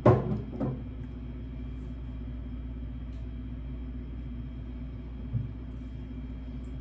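A glass wine bottle set down on a table: one knock and a lighter one just after. Then a steady low hum.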